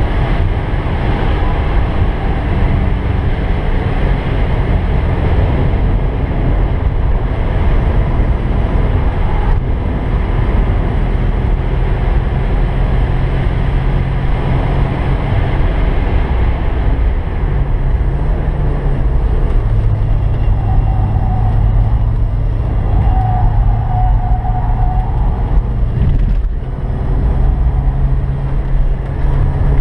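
Naturally aspirated 1986 Porsche 944's 2.5-litre four-cylinder engine running hard at track speed, heard from inside the cabin over road and wind noise. The engine note holds steady for stretches and changes pitch with throttle and gears, with a brief dip near the end.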